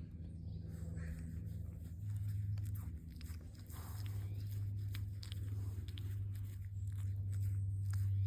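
A deer chewing close to the microphone: irregular crunching and clicking. A steady low hum runs underneath and is the loudest sound.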